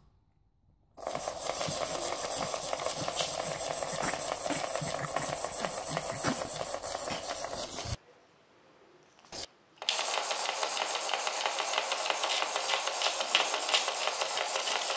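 Wind-up swimmer bath toy running, its clockwork whirring with a fast, even ticking as the arms turn. It stops about eight seconds in; after a short pause with a single click, a wind-up toy whirs again.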